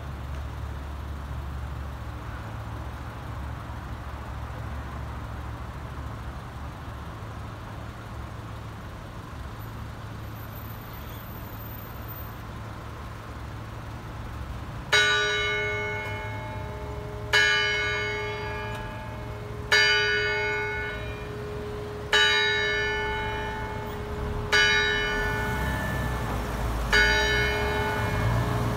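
Town hall clock tower bell striking ten o'clock. After about fifteen seconds of low steady rumble, it strikes six evenly spaced strokes about two and a half seconds apart, each ringing on and fading before the next.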